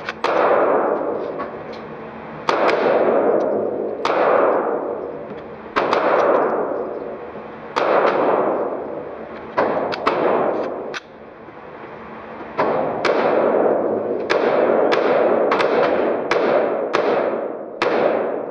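Gunshots echoing in an indoor shooting range, each followed by a long ringing decay. At first they come one every couple of seconds, then a quicker string of about two a second in the second half.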